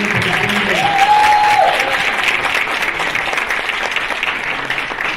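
Audience applauding steadily, beginning to die down near the end, with a single long held note rising above the clapping about a second in.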